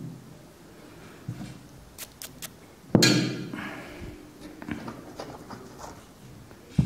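Hard objects knocked and set down on a tabletop: a soft thud at the start, a loud sharp knock about three seconds in that rings briefly as it fades, and another thud near the end.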